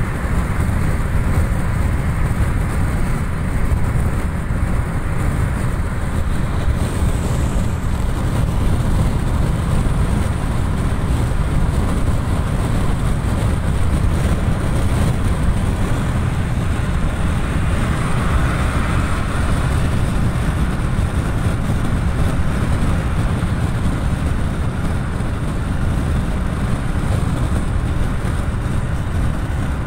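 Steady road noise inside a moving car at highway speed: a low rumble of tyres and engine with a hiss of passing air.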